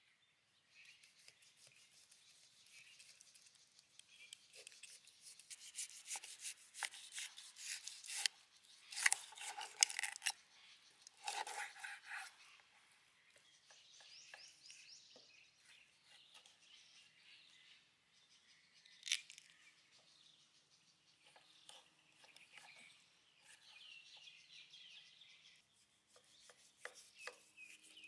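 Kitchen knife cutting and scraping through raw pig feet on a wooden cutting board: a run of sharp clicks and rasping strokes as the blade works through skin and gristle and taps the board. The strokes are thickest and loudest in the first half and sparser after.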